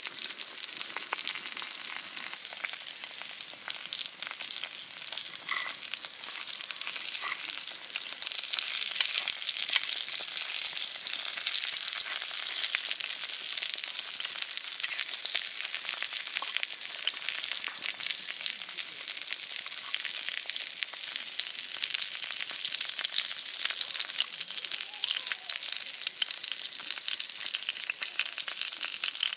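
Food frying in a pan: a steady sizzle full of fine crackles, getting louder about eight seconds in.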